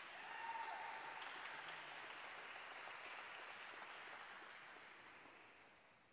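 Faint applause from spectators, swelling briefly after the skaters are introduced and dying away near the end.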